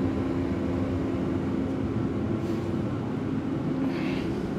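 Steady mechanical hum of a running machine: a low drone holding a constant pitch.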